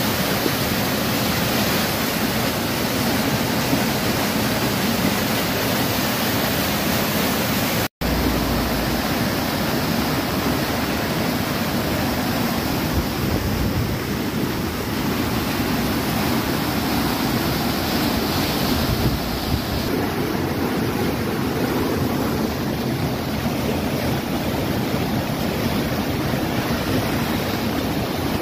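Muddy floodwater from a flash flood rushing and surging over the ground in a fast torrent, a steady, loud rush of water. It breaks off for an instant about eight seconds in.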